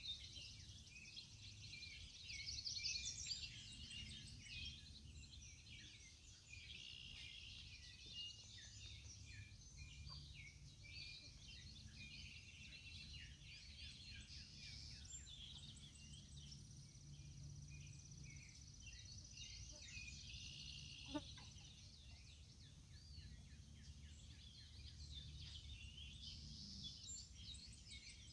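Several songbirds singing and calling together, many short chirps and trills, over a faint steady low rumble.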